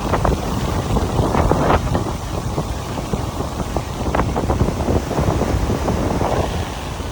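Strong wind buffeting the microphone in uneven gusts, a dense low noise with irregular crackles.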